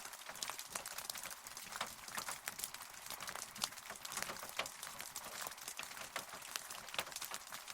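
Rain falling steadily, a constant hiss with many individual drops striking close by as sharp, irregular ticks.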